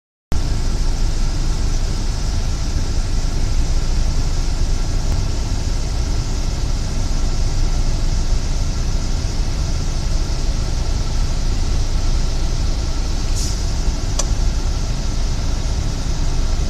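Steady low rumble with a hiss above it and a faint steady hum, unbroken throughout, with two brief faint clicks about 13 and 14 seconds in.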